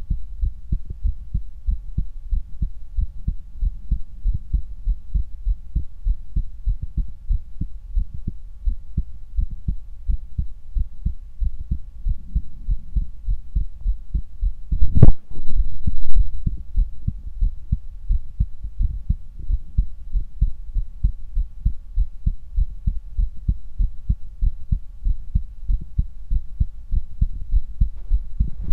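Human heartbeat heard through a stethoscope: a steady, regular rhythm of low thuds. A single louder knock comes about halfway through.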